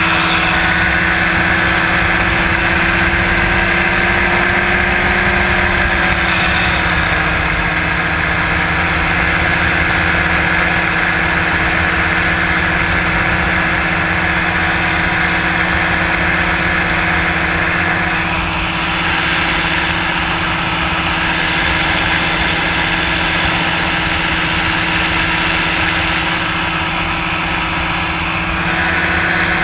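Powered-paraglider trike's engine and propeller running steadily in flight, a constant loud drone whose pitch eases down slightly about six seconds in.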